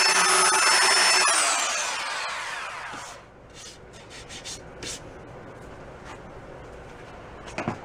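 Handheld belt sander running steadily, then switched off about a second in, its whine falling as it winds down to a stop within two seconds. A few light knocks follow near the end.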